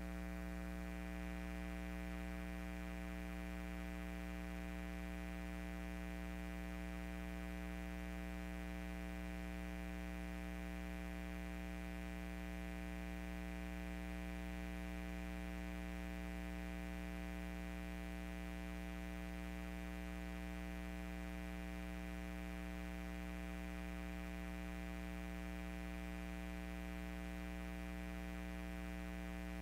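Steady low electrical hum with a buzzy stack of overtones, unchanging throughout.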